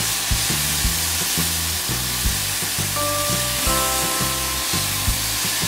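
Banana slices sizzling steadily as they fry in coconut oil in a frying pan.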